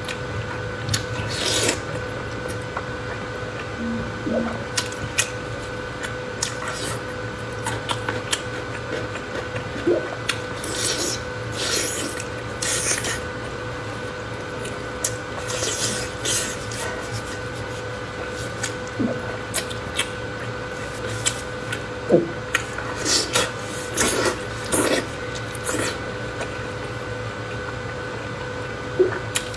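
Close-miked eating sounds: irregular wet chewing, smacking and crunching of a person eating, over a steady faint hum.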